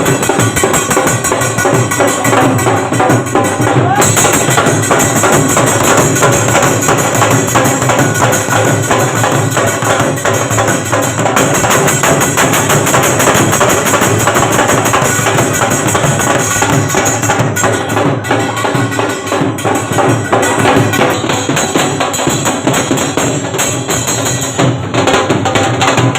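Loud music with a fast, steady percussion beat.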